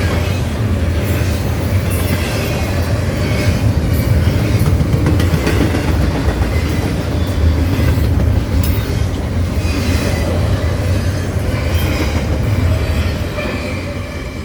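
Norfolk Southern freight cars rolling past on the rails with a heavy, steady rumble and irregular clickety-clack of wheels over rail joints. Brief faint wheel squeals come in now and then. The sound eases slightly near the end.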